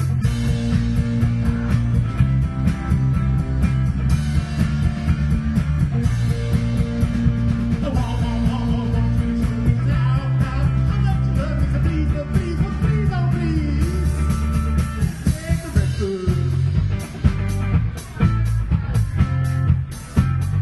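Live rock band playing: two electric guitars over a drum kit, with a melody line sliding up and down in pitch midway and the playing turning choppier near the end.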